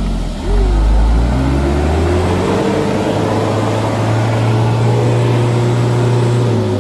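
Mitsubishi Fuso Canter dump truck's diesel engine revving hard, straining to pull the truck out of deep mud where it is stuck. The engine climbs in pitch about two seconds in, holds high and steady, then eases off near the end.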